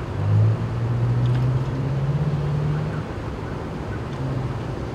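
A nearby vehicle engine running with a steady low hum that rises slightly in pitch around the middle, over general road traffic. A brief low bump comes just after the start.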